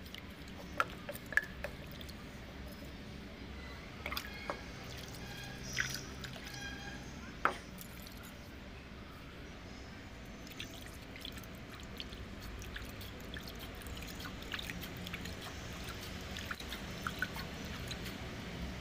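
Water splashing and dripping as a hand rinses out a granite stone mortar, with a few sharp clicks and splashes in the first eight seconds and fainter drips after.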